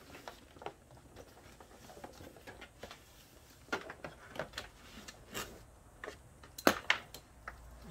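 Power cords and their plastic plugs being handled and sorted: scattered light clicks and knocks as the cables move, the sharpest near the end.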